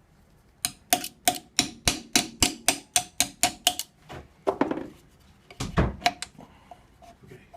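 A hand tool working on metal parts: about eleven sharp metallic clicks at roughly three a second, each with a faint ring, then scraping, a few looser knocks and one heavier thump.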